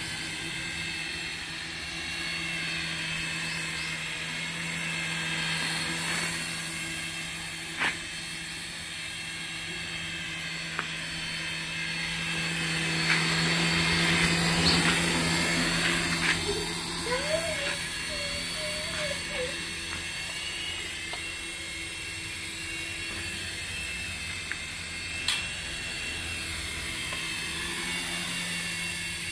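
HX708 coaxial RC toy helicopter's small electric rotor motors running steadily in flight, a low hum under a thin high whine. It gets louder about halfway through as it passes close, then eases off.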